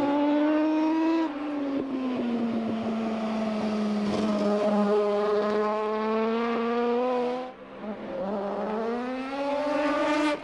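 Norton RC588 racing motorcycle's twin-rotor Wankel engine running at speed. Its pitch falls over the first few seconds, holds, dips along with a brief drop in loudness about seven and a half seconds in, then climbs again as the bike comes past.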